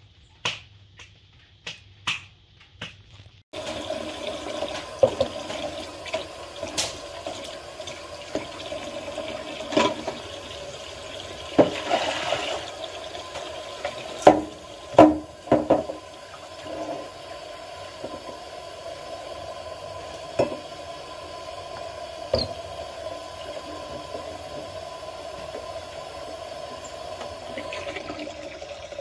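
Kitchen tap running steadily into a sink from about three seconds in, while a stainless steel pot is scrubbed with a sponge under the stream, with scattered sharp clanks of the pot. The first few seconds hold only faint light clicks.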